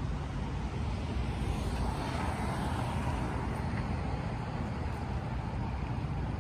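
Street traffic noise, a steady rumble that swells about two seconds in as a vehicle passes.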